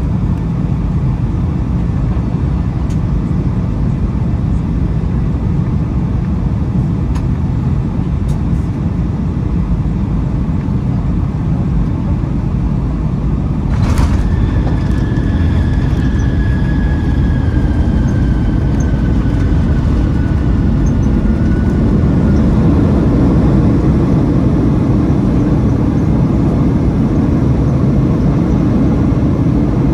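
Cabin noise of a Boeing 757-200 with Pratt & Whitney PW2037 engines, a loud steady rumble of engines and airflow while it descends into San Diego. About halfway through there is a sharp click. A thin tone then falls slowly in pitch for several seconds while the rumble grows a little louder.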